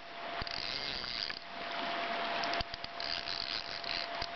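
Fly reel's click-and-pawl drag ratcheting in two spells of rapid buzzing, about half a second in and again near the end, as line moves on and off the reel while a hooked salmon fights. The river's steady rush underneath.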